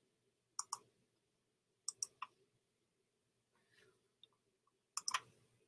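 Computer mouse being clicked: three short groups of sharp clicks, two or three at a time, about half a second in, around two seconds in, and near the end.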